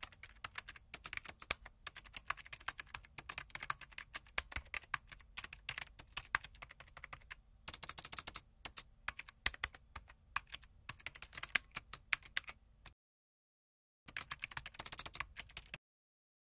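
Computer-keyboard typing sound effect: rapid, irregular key clicks that break off twice into dead silence near the end, with a short burst of typing between.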